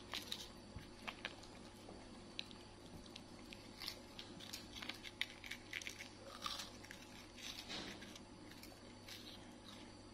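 Crisp wafer biscuits being bitten and chewed by a boy and two pet monkeys: faint, irregular little crunches and crackles, a few a little louder than the rest.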